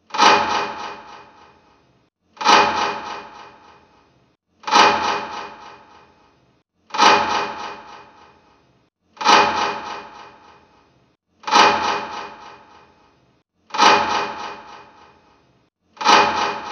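A ringing, chime-like tone struck eight times at an even pace, about every two and a quarter seconds. Each strike starts sharply and rings away over about two seconds.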